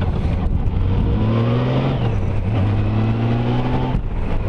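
Honda Gold Wing flat-six engine and wind noise heard from the rider's seat while riding. The engine note climbs twice, each time dropping back abruptly, as the bike accelerates and shifts up.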